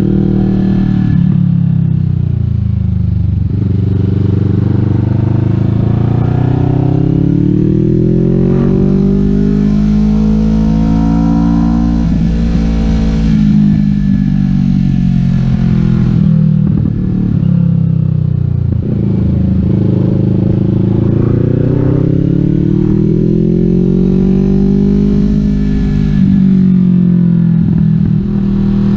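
Kawasaki Vulcan S 649 cc parallel-twin engine through a Delkevic 550 mm slash aftermarket exhaust, ridden hard on a winding road: the engine note falls off, climbs for several seconds under throttle, drops away again and climbs once more before falling off near the end, as the rider accelerates out of bends and rolls off into the next.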